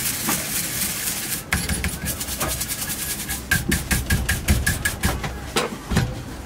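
Cast-iron ningyo-yaki molds being worked by hand. There is a second or so of rapid scraping, then a low rumble under a quick run of sharp clicks, about five a second, and two knocks near the end.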